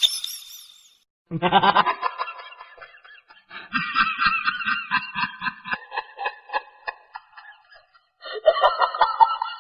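People laughing in quick, pulsing bursts, with a deeper laugh joining about a third of the way in and the laughter picking up again near the end.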